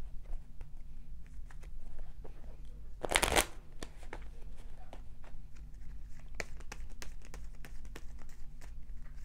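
A deck of tarot cards being shuffled by hand: a quick run of soft card flicks and taps, with one louder rustling burst about three seconds in.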